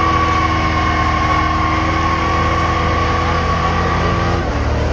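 Car doing a burnout: the engine held at high revs while the tires spin on the pavement with a steady high squeal. The steady tones break off about four seconds in.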